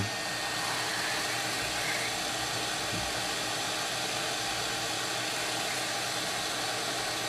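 858D hot air rework station blowing a steady rush of air from its handpiece while heating a small chip to reflow the solder.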